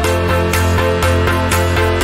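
Background music with a steady electronic beat over sustained bass notes.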